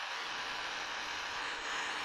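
Handheld MAP-gas torch flame hissing steadily as it heats a steel rod clamped in a vise toward red heat for bending.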